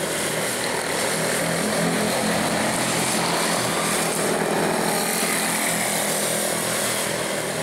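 Quarter midget race cars' small single-cylinder Briggs & Stratton Animal engines running at racing speed, a steady buzzing drone as the cars circle the track.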